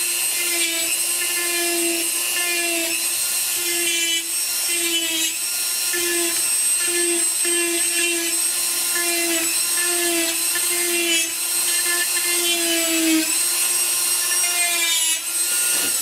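Dremel rotary tool running at high speed, its whine dipping briefly in pitch again and again as the bit grinds small notches into a cast resin model part.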